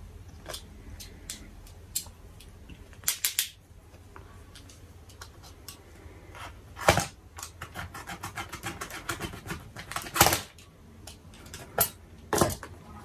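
Hands working at an SD card's packaging to get it open: scattered clicks, taps and crackles, with several louder knocks.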